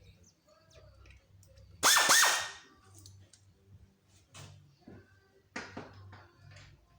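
Hand tools clicking and knocking on metal engine parts while the intake manifold is being taken off, with one louder ringing metallic clatter about two seconds in.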